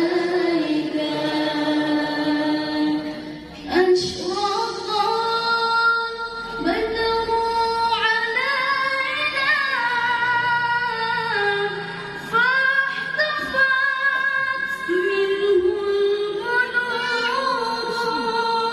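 A qoriah (female Quran reciter) chanting a melodic recitation unaccompanied into a microphone over a PA. Her voice holds long, ornamented notes that step up and down in pitch, in long phrases with a short pause for breath about three and a half seconds in.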